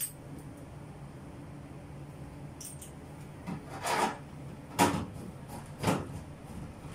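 Handling noises from cabinet installation work: a soft knock, a short scrape, then two sharper knocks about a second apart.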